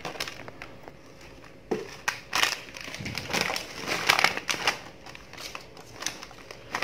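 Crinkling of a plastic snack packet being handled, with dry puffed crackers rustling, in irregular bursts over a few seconds.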